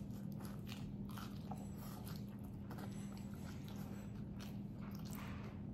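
Close-miked biting and chewing of a fried taquito with a refried-bean filling, heard as many small scattered crunchy clicks over a steady low hum.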